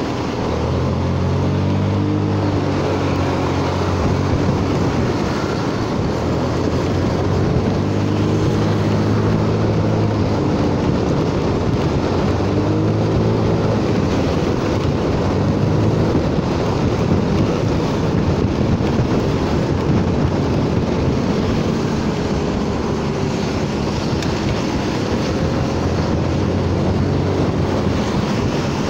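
Honda Forza 300 scooter's single-cylinder engine running while riding, its note rising and falling with the throttle, over steady wind rush on the microphone and the hiss of tyres on a wet road.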